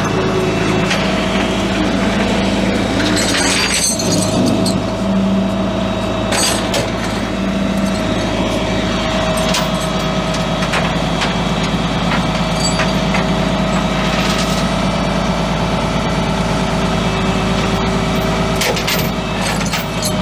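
Kenworth rollback tow truck's diesel engine running steadily while its Vulcan bed's hydraulics tilt the bed and winch a pickup aboard, a constant hum with a whine on top. A few short metallic knocks now and then.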